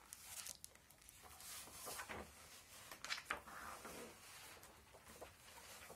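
Large picture-book page being turned: irregular rustling of stiff paper, faint, with a couple of sharper flaps about three seconds in.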